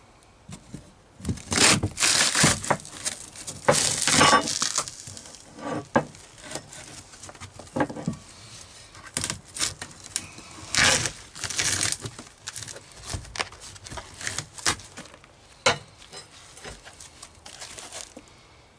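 Irregular bursts of tearing and crumbling as water-soaked flotation foam and rotted plywood are pulled out of a boat's floor, with scattered knocks in between.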